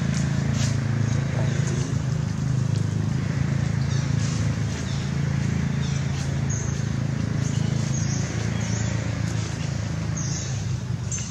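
Steady low hum of outdoor background noise, with brief high chirps now and then.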